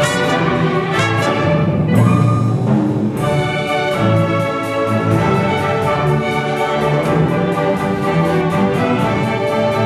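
A school symphony orchestra playing classical music live, with full held chords and a strong accented chord about two seconds in.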